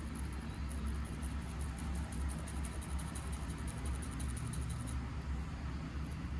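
Toothbrush bristles scrubbing rapidly over an iPhone's speaker and microphone grille, a fast, faint scratching that stops about five seconds in, brushing out the dust clogging the mesh. A steady low hum runs underneath.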